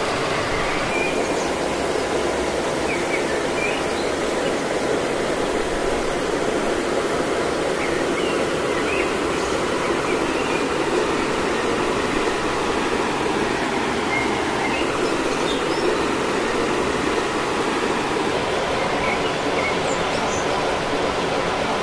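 Steady rushing of a waterfall and stream, with a few faint short high chirps scattered through it.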